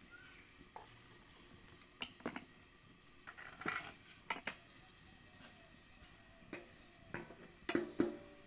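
Kitchen containers and metal utensils being handled and set down: scattered light clatter and knocks, with a cluster of louder metallic clanks near the end, the last ones ringing briefly, around a steel plate covering a wok.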